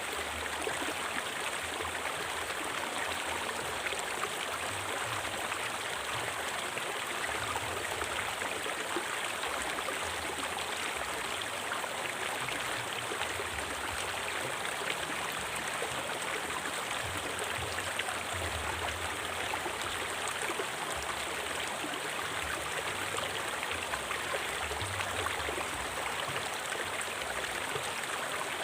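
River water flowing steadily over rocks, an even, unbroken rush of moving water.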